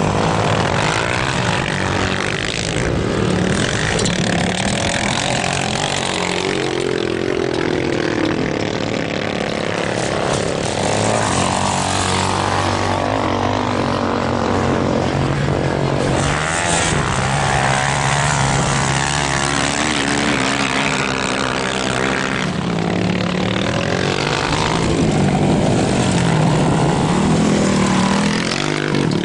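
Several dirt bikes racing on a motocross track, their engines revving and falling with throttle as they pass and overlap.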